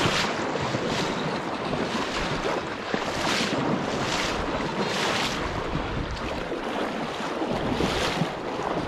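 River current rushing steadily, with wind buffeting the microphone and a run of louder splashes about once a second from wading through the water.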